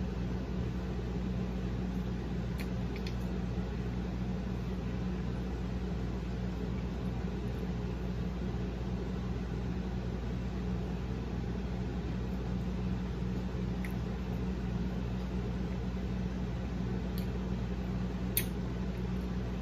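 Steady low mechanical hum throughout, with a few faint short clicks of chewing and food handling; the most distinct click comes near the end.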